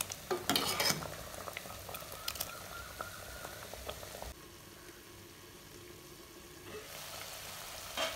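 Thick sambar simmering in a metal pot, with small bubbles popping and a steel ladle clinking against the pot in the first second. A single sharp knock comes near the end.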